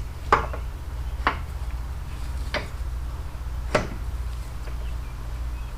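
Click-type torque wrench clicking on the front axle clamp bolts as it reaches its 15 foot-pound setting: four sharp clicks about a second apart. A steady low hum runs underneath.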